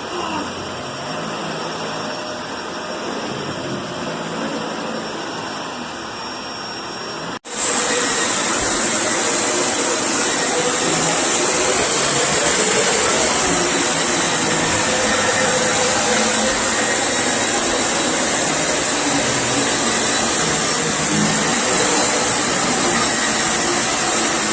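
Vacuum cleaner running steadily. About seven seconds in the sound cuts off and comes back louder, now with a steady high whine on top.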